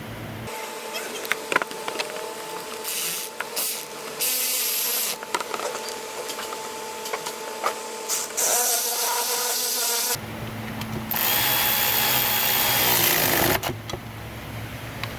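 Cordless power driver whirring in four short runs, the longest about two and a half seconds near the end, tightening the screws that hold the EGR pipe to the new EGR valve. Light clicks of the tool and socket fall between the runs.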